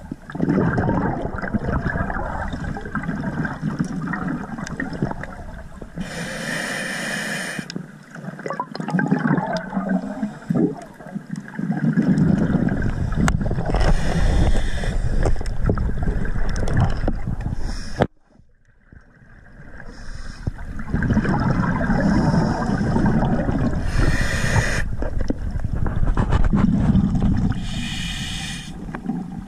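Scuba diver's breathing through a regulator, heard underwater through a camera housing: a steady muffled rumble of bubbles, broken by several separate hissing bursts of a second or two each. The sound briefly drops out about two-thirds of the way through.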